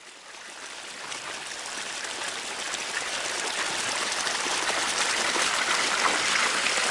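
Water gushing out of an open gate on a gated irrigation pipe onto grass: a steady rush that grows louder over the first couple of seconds, then holds.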